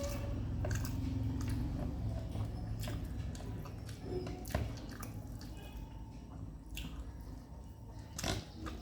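A person eating stingray fish curry with rice by hand: soft wet chewing with many small mouth and finger clicks, over a low steady hum.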